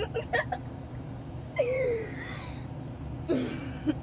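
A woman laughing in bursts: a few quick giggles at the start, a higher, longer laugh falling in pitch about halfway, and another burst near the end, over a steady low hum.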